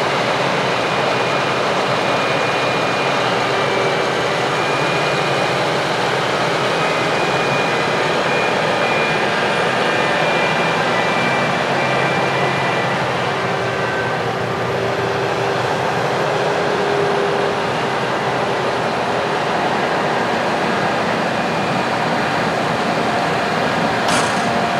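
Heavy farm machinery running steadily under load: a loud, continuous machine drone with faint steady whining tones over it. A couple of short clicks come near the end.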